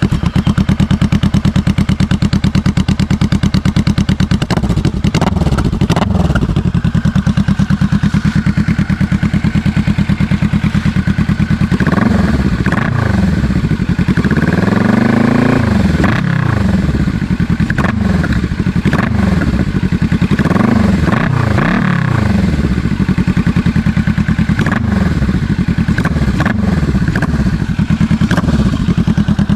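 Kawasaki Vulcan S 650's parallel-twin engine running through a short-style 2-into-2 aftermarket exhaust: idling, then blipped up and back down repeatedly, with the biggest rev about halfway through.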